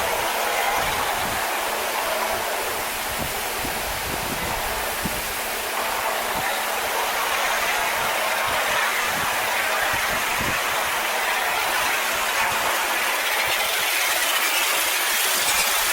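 Pressure washer spray hitting corrugated barn tin: a steady loud hiss of water on metal over a constant low hum.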